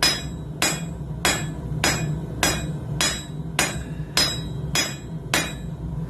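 Blacksmith's hand hammer striking hot coil-spring steel on an anvil, about ten even blows a little under two a second, each with a brief metallic ring.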